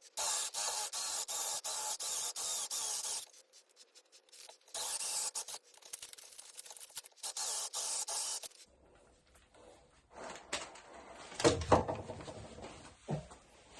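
Rapid, even rubbing or scraping strokes in two runs of a few seconds each, with a short pause between them. Near the end come a few louder short sounds that slide down in pitch.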